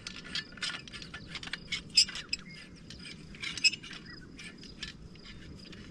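Quick, irregular metal clicking and scraping as a multi-purpose folding entrenching tool is put together: the knife slid into its hollow handle and the handle parts threaded together, with one sharp click about two seconds in. A few bird chirps.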